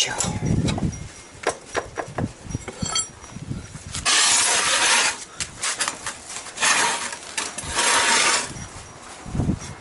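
Hand tools and metal parts clinking and knocking while the lower bolt of a motorcycle rear shock absorber is worked loose, broken by two longer rasping noises about four and seven seconds in and a dull thud near the end.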